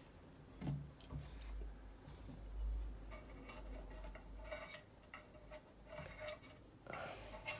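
Small plastic and metal parts of a welder foot pedal being handled: scattered light clicks and scrapes, with a low rumble of handling in the middle.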